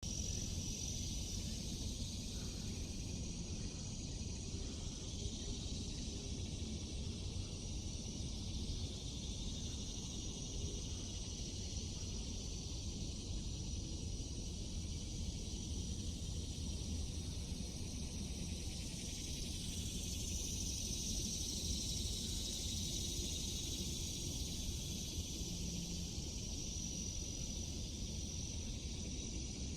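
A chorus of cicadas buzzing in the trees: a steady, high, shrill hiss with a held whine running through it, swelling slightly about two-thirds of the way through. A low, steady freeway traffic rumble lies underneath.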